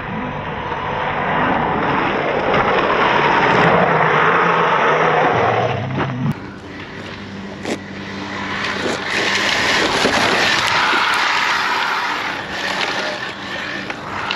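HPI WR8 Flux RC rally car driving, its brushless electric motor whining over tyre noise. The sound swells twice as the car runs close by.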